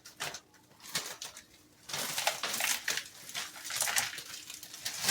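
A spoon mixing ice cream with smashed creme cookies in a container: quiet at first, then from about two seconds in, a run of quick, irregular scraping and crunching strokes.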